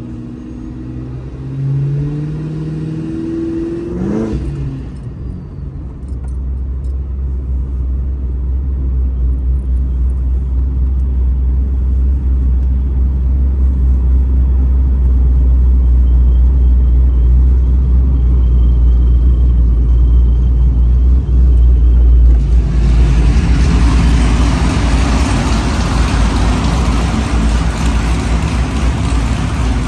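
V8 car engine and exhaust heard while driving, with the pitch rising and falling in the first few seconds, then settling into a deep drone that grows steadily louder. About 22 seconds in, a loud rushing noise comes in on top and holds to the end.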